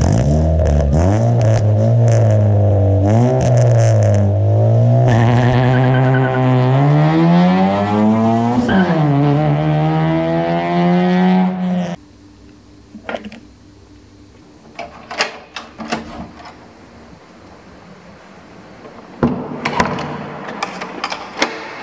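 Engine-modified Honda Brio Satya's 1.2-litre four-cylinder engine revving, then accelerating away with the revs climbing. The pitch dips about nine seconds in at a gear change and climbs again. It cuts off abruptly about halfway through, and quiet clicks and knocks from a door lever being handled follow.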